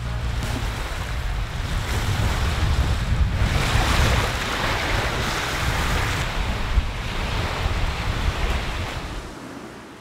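Strong wind with heavy buffeting on the microphone and waves washing on a shore. It swells a few seconds in and drops away near the end.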